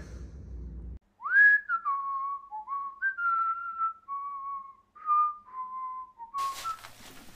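A person whistling a short tune: a single clear line of held notes, stepping and gliding between them. Near the end, rustling and handling noise comes back in.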